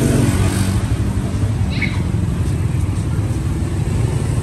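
Steady low rumble of street background noise, engine-like, with a short high chirp about two seconds in.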